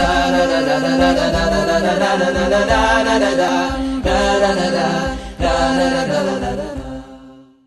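Chant-like a cappella vocal music over a steady held low note, fading out near the end.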